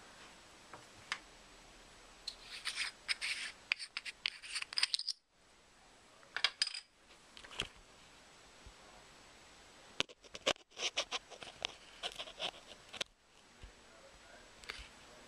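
Handling noise from a 0.45x fisheye converter lens being fitted over a camera lens: light clicks, scraping and rubbing of the lens barrel against the camera and fingers, in three bursts.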